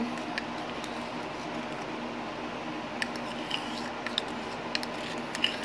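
A few light clicks and taps from a small plastic baby bottle and squeeze container being handled over a plastic mixing bowl, over a steady background hum.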